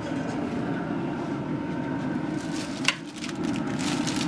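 Traeger Ironwood 885 pellet grill running hot with its lid open: a steady low rushing hum from its fan and fire. A single sharp click comes near three seconds in.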